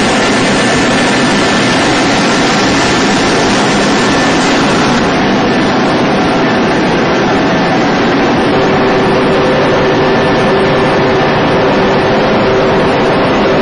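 Snack-food production machinery running: a loud, steady mechanical noise with a few thin steady tones in it. About two-thirds of the way through, a couple of lower steady tones grow stronger.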